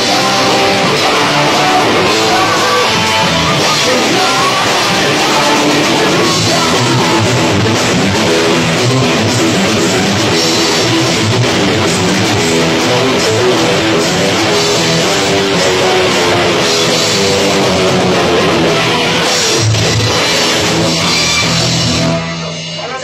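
Rock band playing at full volume: electric guitars, drum kit, bass and keyboard together. The band drops away sharply near the end.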